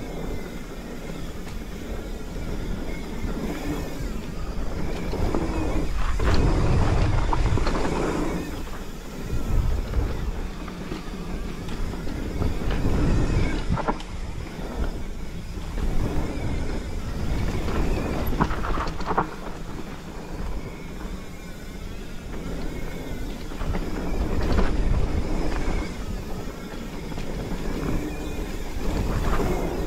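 Mountain bike riding down a dirt singletrack: the tyres rumble over the dirt, with knocks and rattles from the bike over bumps and wind rushing on the microphone. The sound swells and fades every few seconds with speed.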